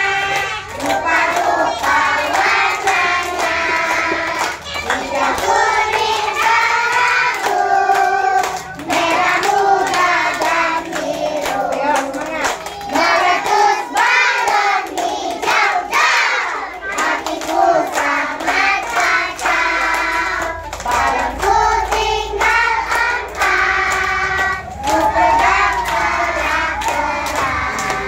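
A group of young children singing a song together, clapping their hands along in a steady rhythm.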